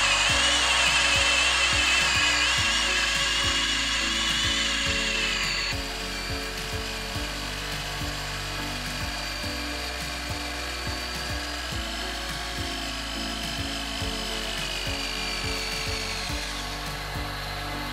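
Corded power drill running as it turns a rotary-jetting drill stem into the ground, its motor whine wavering in pitch; the whine drops to a quieter level about six seconds in. Background music plays underneath.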